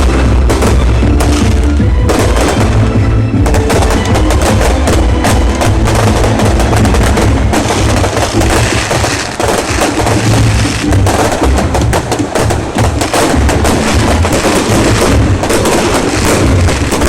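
A fireworks display crackling: a dense, rapid run of sharp bangs and cracks that keeps going without a break. Loud music with a steady low bass and drums plays underneath.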